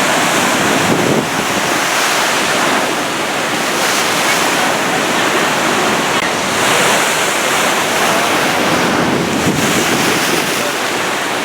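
Rough sea: heavy surf breaking and washing, with strong wind buffeting the microphone in a steady, loud roar of noise.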